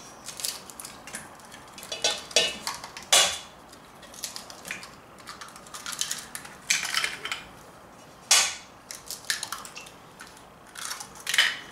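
Eggs being cracked against the rim of a stainless steel mixing bowl: a series of sharp taps and clinks at irregular intervals, several of them loud.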